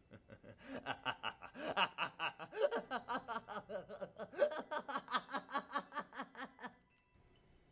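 A man's long cackling laugh in rapid, evenly spaced bursts, starting about a second in and cutting off suddenly near the end.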